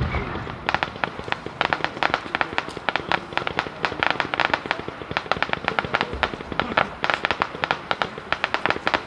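Fireworks crackling: a rapid, uneven string of sharp cracks that starts just under a second in and keeps going.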